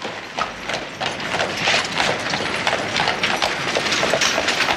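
Horses' hooves clopping amid a dense clatter of short knocks and shuffling.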